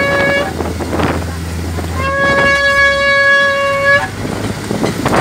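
Vehicle horn honking: a short honk that ends about half a second in, then one long steady honk of about two seconds. Wind and road noise from a moving vehicle run underneath.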